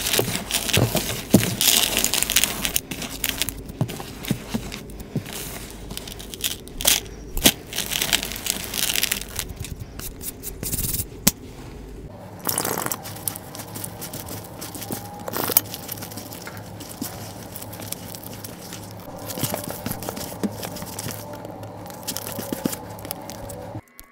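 Hands squeezing and crumbling a tub of pink chalk powder (a reform of calcium carbonate, cornstarch and gym chalk with bits of dried rose and leaf), giving dense crunching and crackling. About halfway through it turns quieter, with only scattered crackles.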